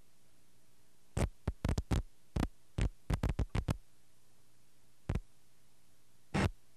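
Irregular sharp pops and thumps: a quick run of about a dozen in the first half, then two more spaced a second apart, over a faint steady hum.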